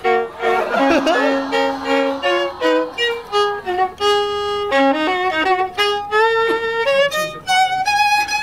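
Solo violin played with the bow, improvising a melody. It starts with a quick passage of short notes and moves to longer held notes, ending on a long high note near the end.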